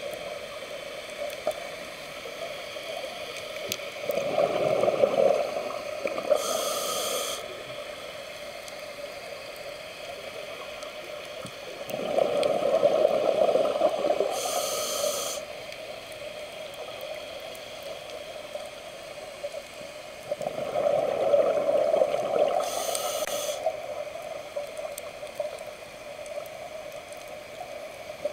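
Scuba diver breathing through a regulator underwater. There are three breaths about eight seconds apart, each a few seconds of bubbling rumble ending in a short hiss.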